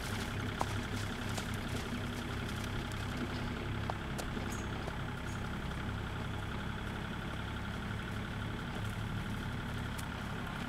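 A steady low mechanical hum, like an idling engine, holding even throughout with a few faint clicks over it.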